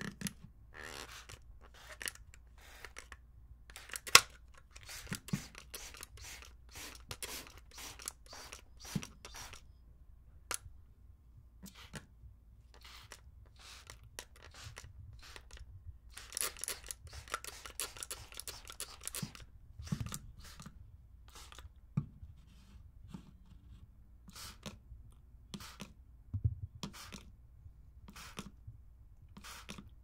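Plastic trigger spray bottle squeezed over and over, each pull giving a short hiss of water mist. The sprays come at irregular intervals, with a quick run of them about halfway through.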